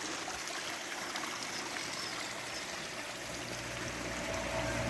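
Mountain stream running down the slope, a steady rush and trickle of water. A low steady hum comes in over the last second or so.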